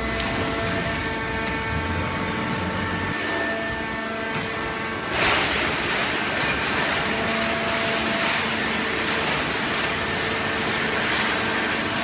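Open-end horizontal hydraulic cardboard baler and its feed conveyor running: a steady machine hum with several steady tones, joined about five seconds in by a louder rushing hiss that carries on.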